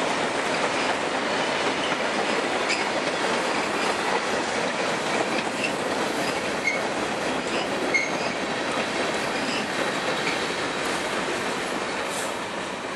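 Freight cars of a fast-moving Georgia Central train rolling past close by: a steady rumble of steel wheels on rail with clicking over the rail joints and a few brief high wheel squeaks. The sound starts to fade near the end as the last cars draw away.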